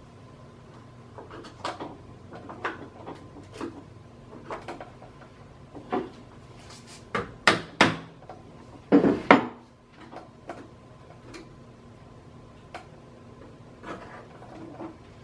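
Mallet knocks and tool clicks on a fiberglass mold as its halves are worked apart with wedges. Light scattered taps give way, about seven seconds in, to a quick run of sharper knocks, then a longer, noisier knock about nine seconds in.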